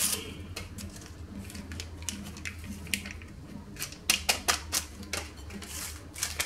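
Small paper sachets of baking powder being handled and emptied into a glass mixing bowl: dry crinkling and irregular sharp clicks, busiest about four seconds in, over a low steady hum.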